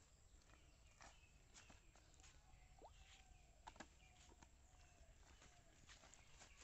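Near silence with faint, scattered clicks and rustles of footsteps on dry leaves and mud.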